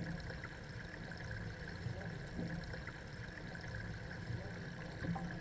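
Steady rush of water flowing through the concrete trout raceways.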